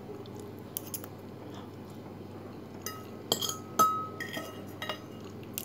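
Metal fork clinking and scraping against a ceramic plate, a handful of sharp clinks mostly in the second half, one ringing briefly.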